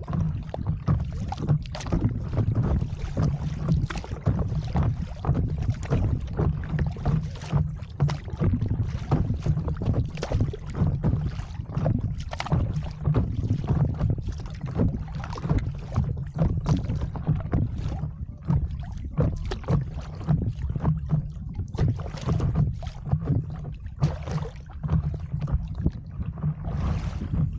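Wind buffeting the microphone with a steady low rumble, while choppy sea water slaps and splashes irregularly against the nose of a moving stand-up paddle board.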